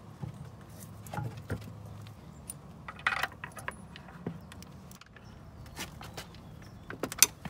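Scattered clicks and knocks of metal bolts and hard plastic as a Pentair IntelliFlo pump motor is fitted back onto the pump housing and its bolts are started by hand, with a quick run of sharp clicks near the end.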